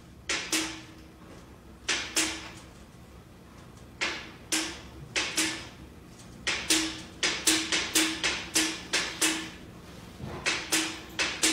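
A cat batting at horizontal window blinds, the slats clacking against the window again and again at uneven spacing, often two to five quick clacks together, each a sharp clack with a short ring.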